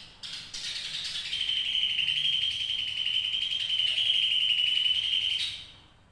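Cucak ijo (green leafbird) giving a long 'ngekek': a few short broken notes, then a fast unbroken trill of rapid notes held at one steady high pitch, stopping about five and a half seconds in.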